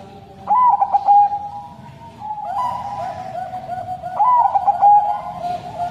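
Zebra dove (perkutut Bangkok) cooing: two loud phrases of quick, clipped coos, one about half a second in and one about four seconds in, with softer cooing in between.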